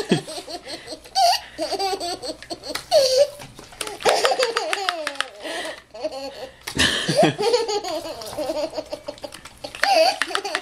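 Toddler laughing hard, in repeated high-pitched bouts of belly laughter with short pauses between them.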